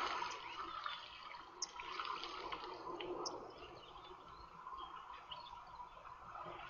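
Faint outdoor background hiss with scattered soft clicks and rustles, and a few short high chirps, one about a second and a half in and another about three seconds in.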